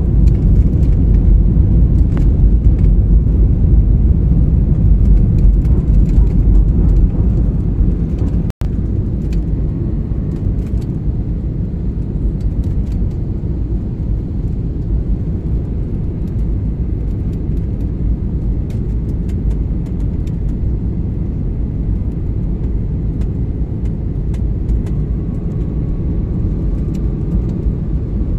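Airliner cabin noise during the descent: a steady low rumble of engines and rushing air at a window seat. It cuts out for an instant about eight seconds in and is a little quieter afterwards.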